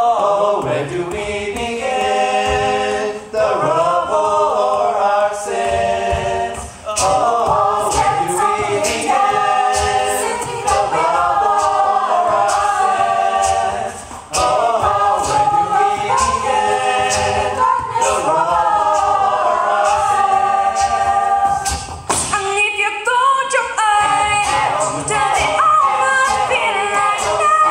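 Mixed-voice a cappella group singing a song in close harmony, with sustained backing chords and a beatboxer's vocal percussion clicking throughout. The chords break off briefly a few times.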